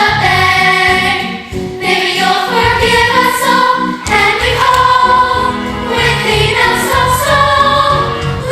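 A cast chorus of young voices singing a musical-theatre number together over instrumental accompaniment, holding long notes.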